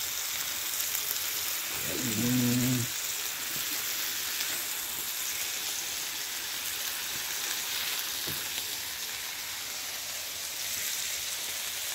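Smash-burger patties and toasting buns sizzling on a flat-top griddle: a steady frying hiss.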